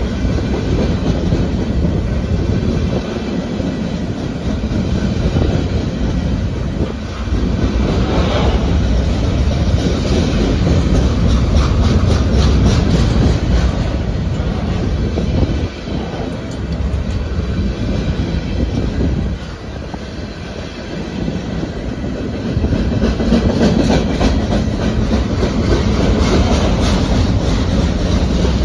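CSX freight train's cars rolling past: a steady rumble of steel wheels on the rails with clickety-clack from the wheels crossing rail joints, dipping briefly a couple of times before picking up again.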